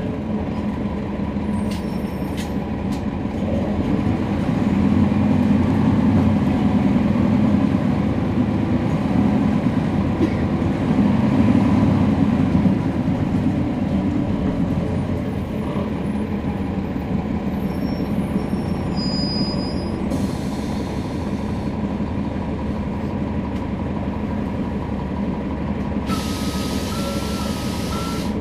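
Cabin sound of a NABI 40-SFW transit bus under way, recorded at the rear: the Cummins ISL9 diesel and ZF Ecolife six-speed automatic transmission drone steadily, swelling louder for several seconds early on and then settling. A burst of hiss comes near the end.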